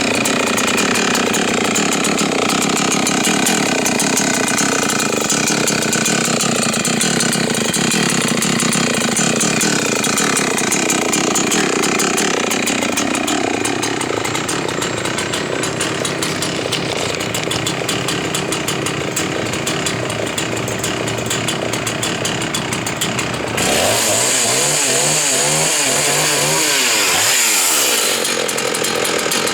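Husqvarna 61 two-stroke chainsaw running under load, cutting through a log, its engine pitch shifting as it cuts. About three-quarters of the way through, the sound turns hissier and the pitch wavers for a few seconds before settling.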